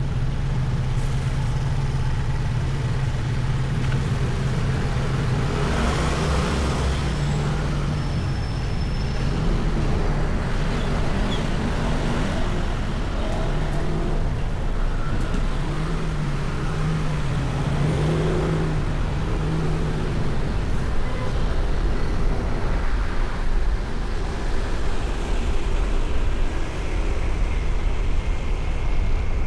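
City street traffic heard from a moving vehicle: a steady engine hum that steps up and down in pitch, over continuous road and tyre noise from surrounding cars. The engine hum fades out after about twenty seconds, leaving the road noise.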